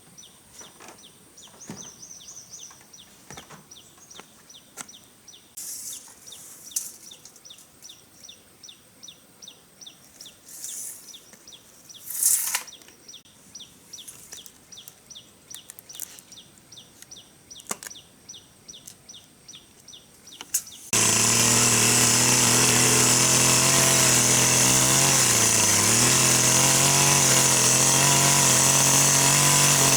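High chirping repeated about three times a second, with a few scattered knocks. About two-thirds of the way through, a chainsaw cuts in abruptly and runs loud and steady, its pitch dipping briefly once.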